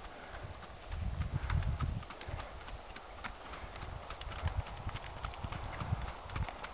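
Hoofbeats of a ridden Icelandic horse moving at a brisk gait over firm ground, a quick run of sharp clip-clop strikes. A low rumble swells about a second in.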